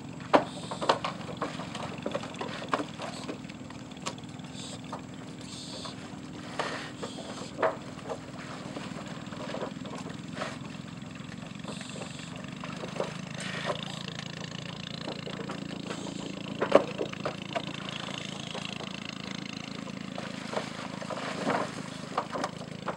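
Swamp water buffalo clambering down a wooden log ramp into the water: irregular sharp knocks of hooves on the timbers, the loudest about a second in and near the middle, over a steady low engine hum.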